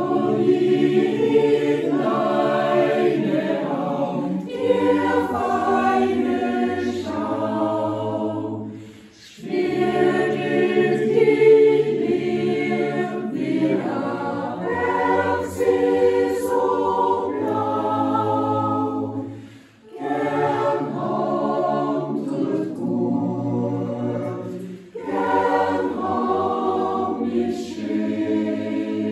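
Small mixed choir of women's and men's voices singing a cappella, in sung phrases broken by short breath pauses about nine and twenty seconds in.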